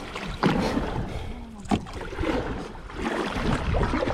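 Water splashing and sloshing around a kayak, with wind noise and two sharp splashes or knocks, one about half a second in and one just before the two-second mark. Faint voices can be heard in the background.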